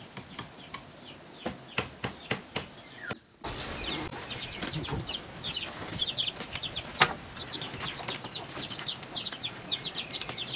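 A few sharp clicks at first, then after a short drop-out, birds chirping busily: many short falling chirps, several a second, with a sharp knock about midway.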